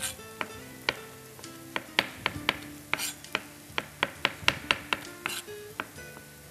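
A chef's knife slicing fresh mushrooms on a cutting board: a run of sharp knocks of the blade on the board, a few a second, coming faster in the middle, over soft background music.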